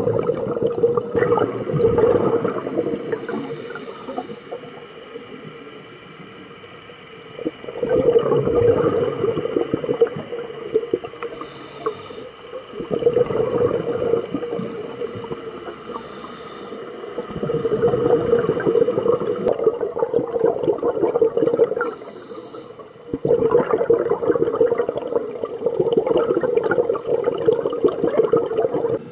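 Scuba diver breathing through a regulator underwater: long bursts of exhaled bubbles gurgling past the camera housing, about five in all, with quieter gaps for each inhalation between them.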